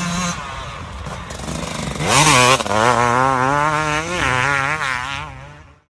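Dirt bike engine revving. About two seconds in it is opened up hard with a loud burst of noise and climbs sharply in pitch, then holds high with small throttle wobbles before fading out near the end.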